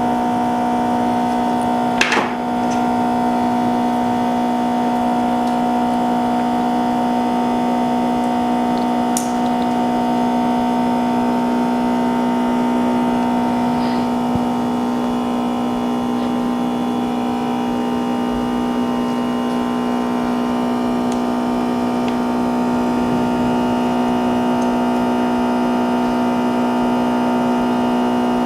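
A loud, steady machine hum at one fixed pitch, unchanging throughout, with a couple of faint clicks.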